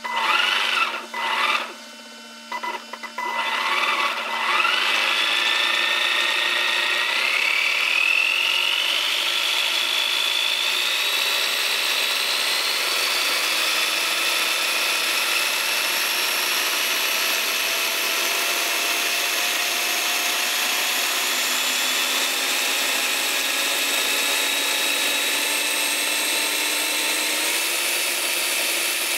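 RC car's RS540 Sport Tuned brushed electric motor and drivetrain, running with no load. A few short throttle blips come first, then a held run whose whine rises in pitch over several seconds and settles into a steady high whir.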